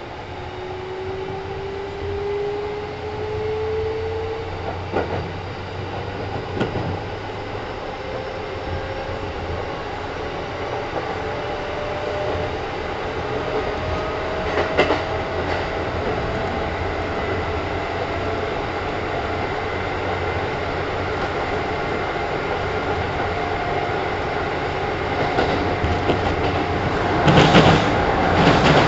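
Kintetsu 1010 series electric train running, its motor whine rising slowly and steadily in pitch as it gathers speed, over a steady wheel-on-rail rumble. Near the end, a run of loud clacks from the wheels on the track.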